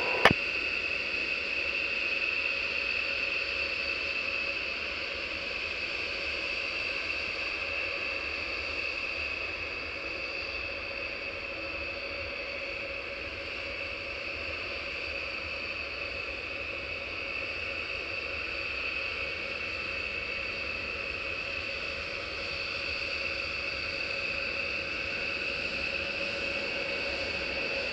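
B-1B Lancer's four General Electric F101 turbofans running at low taxi power, a steady jet whine over a hiss, as the bomber lines up for takeoff.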